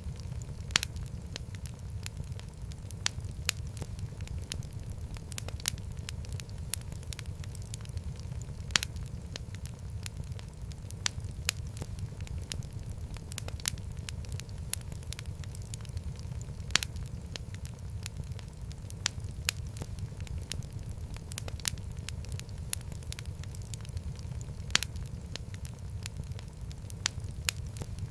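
Wood fire burning in a fireplace: a steady low rumble of flames with irregular crackles and pops, a handful of them sharp and louder.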